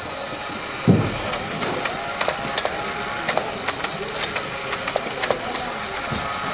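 Battery-operated 1950s bartender toy running: its small motor whirs while the arm shakes the metal cocktail shaker, with irregular clicks and rattles from the tin mechanism. A dull thump about a second in.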